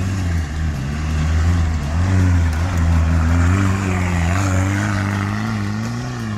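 Off-road 4x4's engine running hard under load as it climbs a steep rocky slope, its pitch wavering up and down with the throttle.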